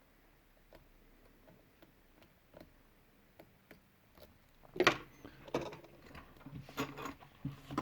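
Small metallic clicks of lock picks working the pin stack in a brass padlock, faint and sparse at first. From about five seconds in the tools and lock give a louder, quicker run of clicks and clatter.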